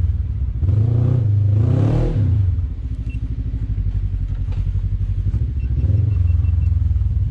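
Side-by-side UTV engine revving under load as it climbs a rock, pitch rising and falling early on, then dropping to a lower steady run before building again near the end.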